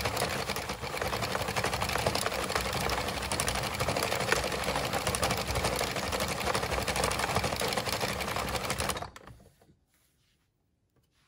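A 22-needle circular knitting machine being cranked steadily, its needles clattering in a fast, dense run of clicks. It stops suddenly about nine seconds in, leaving near silence with a few faint clicks.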